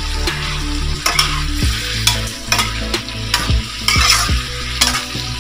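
Long beans and sardines sizzling as they are stir-fried in a metal wok, with a metal spatula scraping and knocking against the pan about twice a second.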